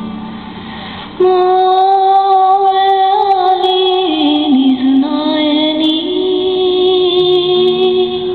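A woman singing a slow lullaby in long held notes, starting abruptly about a second in, dipping lower around the middle and rising again.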